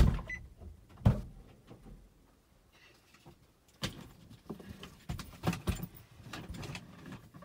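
Knocks and rustling inside a parked car's cabin: a loud thump right at the start and a second about a second later, then a scattered run of lighter knocks and rustles from about four seconds in.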